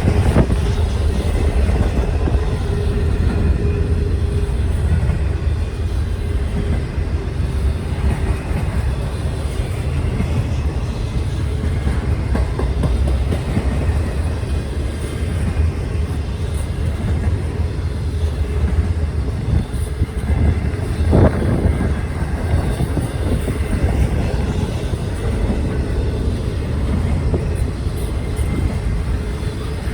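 A train passing close by: a steady rumble of rail cars rolling, with some clickety-clack of wheels over the rail joints. A brief louder sound stands out about 21 seconds in.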